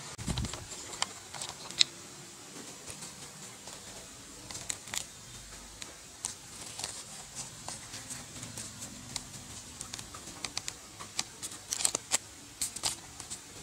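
Handling noise: scattered light clicks and taps, thickest near the end, over a faint steady background hiss.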